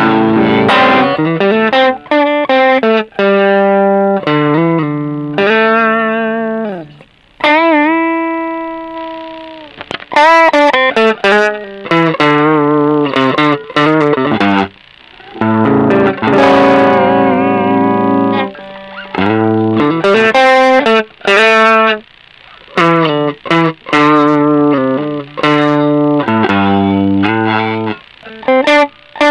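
Electric guitar played through a Caline Green Mamba overdrive pedal, switched on, giving an overdriven tone. Chords and single-note phrases alternate, some with bends and vibrato, and a few notes are left to ring out and fade, around a quarter of the way in.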